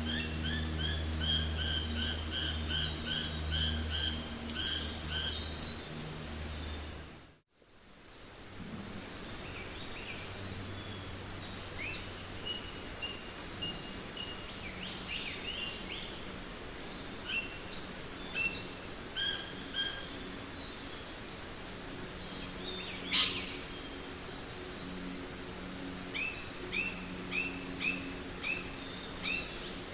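Several birds calling in a forest soundscape: a quick series of repeated chirps at the start, then mixed chirps and whistles, one loud sharp call past the middle and a run of evenly spaced chirps near the end, over a low steady hum. The sound drops out almost completely for a moment about seven seconds in, where one recording gives way to another.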